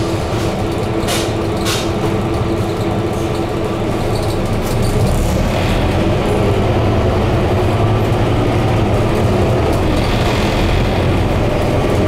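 Scania K230UB bus under way, heard inside on the upper deck: a steady engine note under road and cabin noise, with two short knocks about a second in. It grows a little louder about halfway through.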